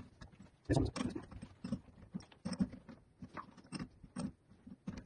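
Four-jaw lathe chuck being adjusted with a T-handle chuck key and turned by hand to clamp a square workpiece: irregular metal clicks and knocks, the loudest about a second in.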